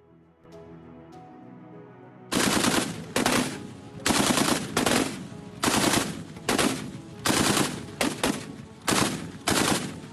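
A twin-barrel towed anti-aircraft autocannon firing about ten short bursts of rapid automatic fire, starting a couple of seconds in, over faint background music.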